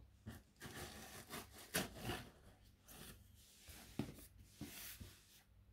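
A kitchen knife scrapes and slices through packing tape on a cardboard box: faint, irregular scratchy strokes with a few sharp clicks of the blade against the box, the sharpest about four seconds in.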